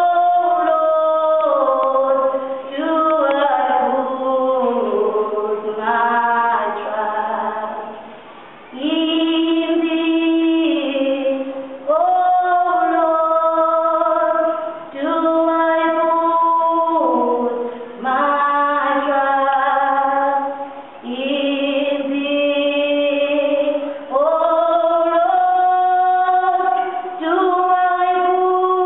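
Women's voices singing a slow song in close harmony with no instruments audible, holding long notes in phrases of a few seconds.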